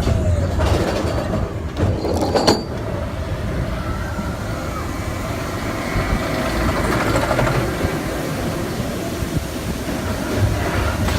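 Roller coaster train rolling along its steel track, a steady rumble of the wheels with a few sharp clacks about two and a half seconds in.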